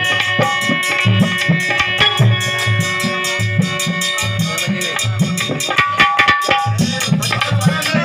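Live Indian folk music: a harmonium sustaining steady chords over a drum keeping a steady beat, with rattling percussion clicking along in time.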